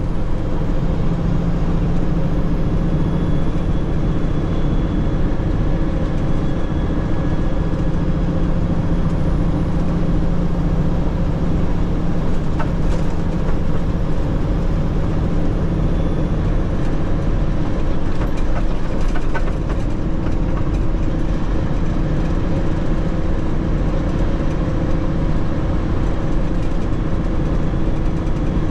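Tanker truck's engine and road noise heard from inside the cab while driving, a steady drone with a low hum, with a couple of faint clicks midway.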